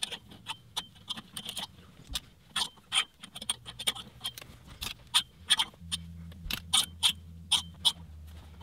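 Clothes hangers clicking and scraping along a closet rod as garments are flipped through one by one, a quick irregular run of sharp clicks.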